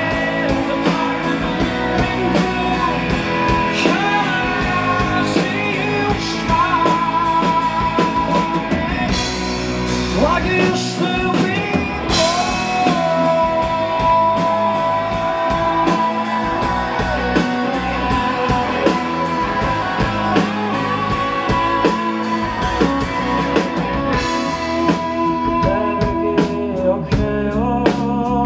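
Live rock band playing a song: electric guitar, bass and drum kit, with long held melody notes over a steady beat.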